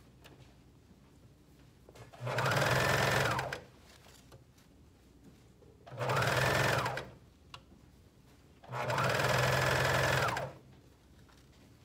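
Juki MCS coverstitch machine sewing a two-needle cover hem on a folded t-shirt sleeve in three short runs. In each run the motor whirs up to speed, holds, and winds down again.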